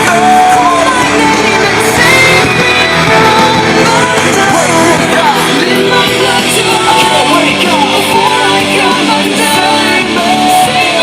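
A rock song with a singing voice, played loudly through Pioneer S-HTD510 surround speakers during a speaker test.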